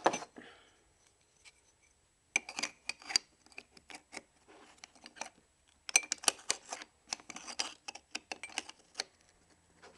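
Handling noise of a paintball marker's battery and wires being pushed into the grip frame: clusters of small clicks and scratches, once about two and a half seconds in and again for a few seconds from about six seconds in.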